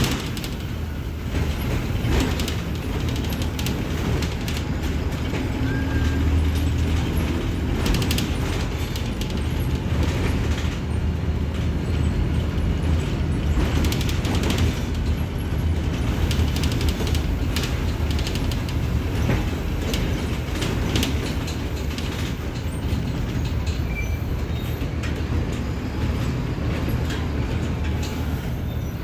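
Mercedes-Benz OF-1721 bus's front-mounted diesel engine running steadily while the bus is on the move, with frequent short rattles and knocks from the bus body.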